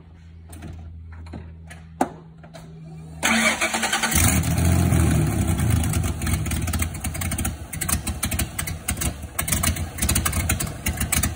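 1994 Ford Ranger's 3.0-litre V6 being started: a sharp click about two seconds in, then about a second later the engine starts and keeps running. It runs on a preliminary ignition timing set from a reference mark after the distributor was refitted.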